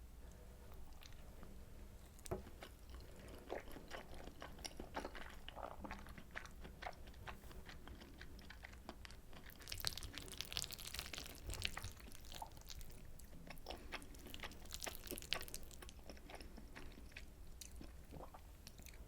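Close-miked chewing of soy sauce butter egg rice: wet mouth clicks and smacks, growing denser and louder about ten seconds in and again around fifteen seconds.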